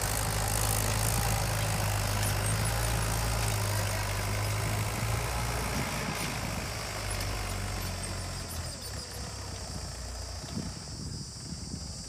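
Diesel engines of a Mahindra tractor hauling a loaded earth trolley and a JCB 3DX backhoe loader, running with a steady low drone. The drone weakens about halfway through and fades further near the end as the tractor drives away.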